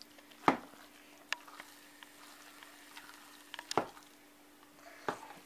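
A metal utensil clicking now and then against a plastic bowl while stirring a meatball mixture of minced meat, rice and grated carrot: a few sharp, irregular taps over a faint steady hum.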